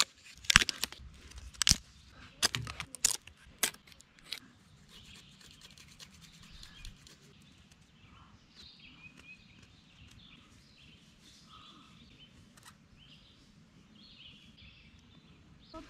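Dry cane cracking and splitting: a run of sharp snaps over the first four seconds or so. This is followed by faint scraping and one small click as a knife whittles a thin sliver of the cane, with birds chirping faintly.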